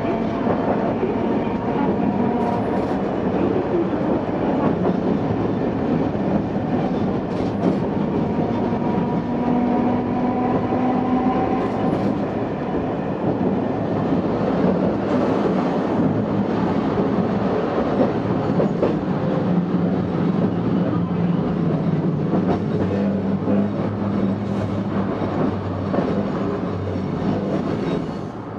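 Tosaden Kōtsū Model 700 streetcar running, heard from inside the car: a steady rumble of wheels on rail with a drifting motor and gear hum, and a few scattered clicks over rail joints.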